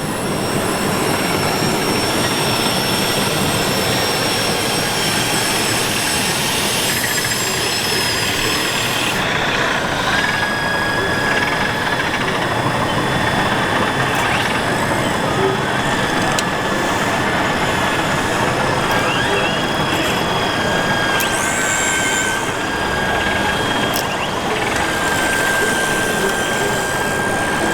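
Large-scale RC construction models working, their motors giving steady high whines, over the continuous din of a busy exhibition hall with voices.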